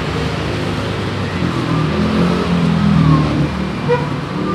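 Steady road traffic noise, with a motor vehicle engine growing louder and changing pitch as it passes about two to three seconds in.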